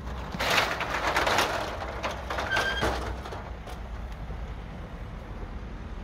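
Metal roller shutter pulled down by hand over a window, its slats rattling as it rolls down for about two and a half seconds, with a short squeal near the end of the run.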